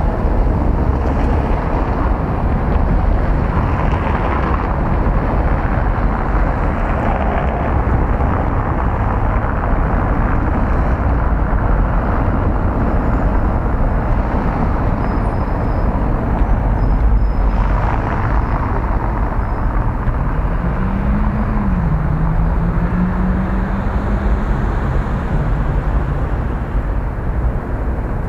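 Steady outdoor city noise: a broad rumble of traffic, with a low hum that wavers in pitch from about twenty to twenty-five seconds in.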